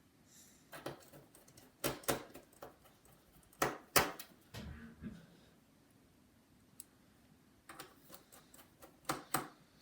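Irregular clicks and knocks of objects being handled on a hard surface, several in quick succession, the loudest about four seconds in, with a quieter gap in the middle and a few more taps near the end.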